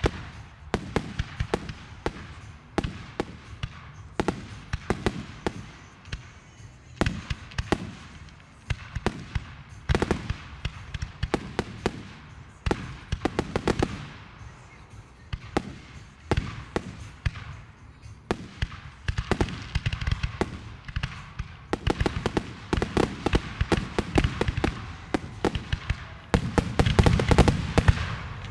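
Aerial fireworks shells launching and bursting: many sharp bangs and pops in quick, irregular succession, with a rumble between them. The bursts get louder and denser in the last couple of seconds.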